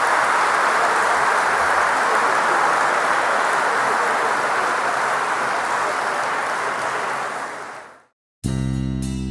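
Audience applauding, a dense steady clapping that fades out about eight seconds in. Strummed guitar music starts just before the end.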